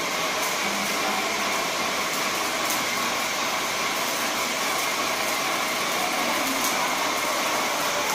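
Graco airless paint sprayer in use: a steady, even hiss of paint spraying from the gun's tip under high pressure, with the machine running.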